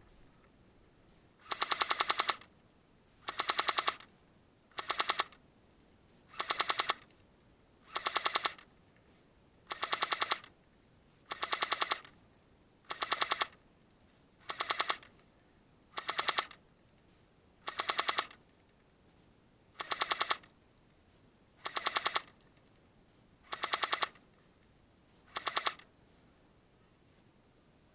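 Airsoft M60 machine gun firing about fifteen short bursts in a steady rhythm, roughly one every second and a half, each a rapid rattle of shots. The firing stops shortly before the end.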